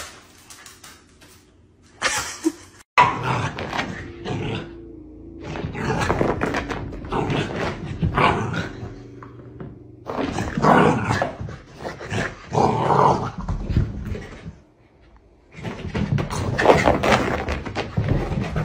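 Pomsky (Pomeranian–husky mix) dog vocalizing in a string of calls about a second long each, with a short lull about two-thirds of the way through.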